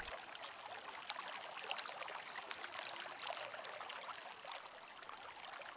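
Faint, steady water ambience: an even trickling, pattering hiss of water.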